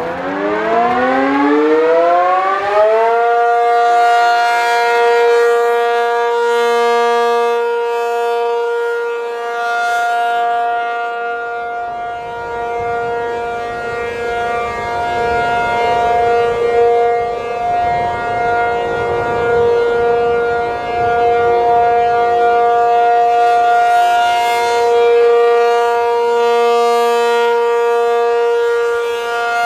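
Rotating outdoor warning siren winding up, its pitch climbing steeply for about three seconds, then holding a steady wail whose loudness swells and fades as the rotating horn sweeps around.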